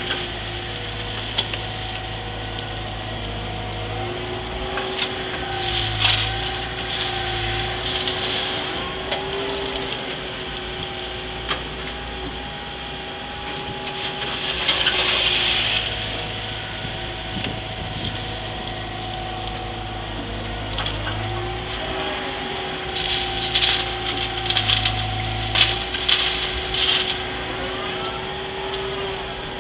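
Caterpillar M312 wheeled excavator working, heard from inside its cab: diesel engine and hydraulics running with a steady whine that shifts in pitch as the arm and bucket move. Gravel scrapes and crunches in the bucket in scattered bursts, loudest about halfway through and again toward the end.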